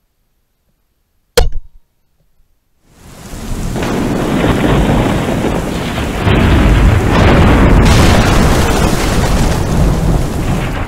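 A single shot from a .22 rimfire rifle firing subsonic ammunition, sharp and short. About a second and a half later comes a loud, steady sound of heavy rain with thunder rumbling underneath.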